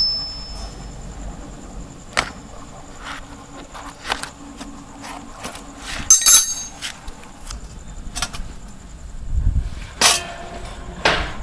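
Scattered clinks and knocks of metal tools and fork parts being handled, with a brighter ringing metallic clink about six seconds in and louder knocks near the end.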